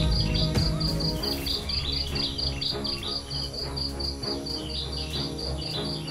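Insects chirping in a steady, even rhythm of high pulses, about five a second.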